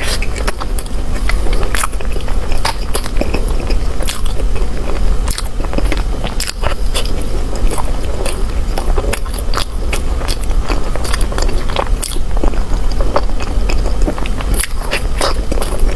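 Close-miked mouth sounds of someone eating bread: bites and chewing with frequent sharp wet clicks and smacks at an irregular pace, over a steady low hum.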